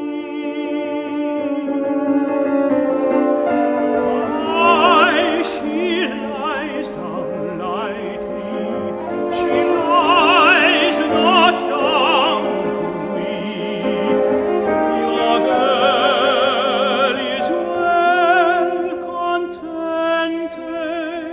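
Classical art-song or operatic singing: a solo voice with wide vibrato sustaining long notes over instrumental accompaniment.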